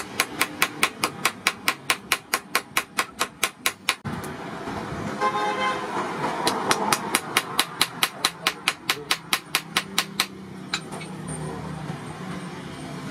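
A hand hammer strikes red-hot steel rebar on a small anvil in a quick, even run of about five blows a second, forge-welding two rebar ends together. The hammering pauses for about two seconds a third of the way in, with a short pitched sound in the gap, then resumes and ends with a few lone taps.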